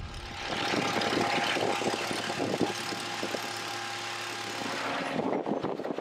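Crawler drill rig drilling blast holes in rock: a steady engine drone with a loud hiss of flushing air. The hiss falls away a little after five seconds.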